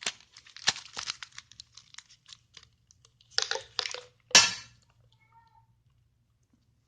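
Crinkling and clicking of a Mentos packet being handled, then a short rustle and a single sharp knock about four seconds in.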